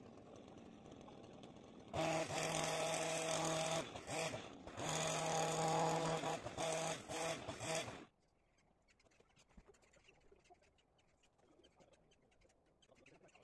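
Hedge trimmer running at full speed while cutting across the top of a hedge: two long bursts of a few seconds each, then a few short blips, after which it stops. Faint bird calls in the quiet that follows.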